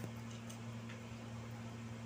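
A steady low electrical hum, with a few faint soft clicks of a child eating cooked quail meat by hand.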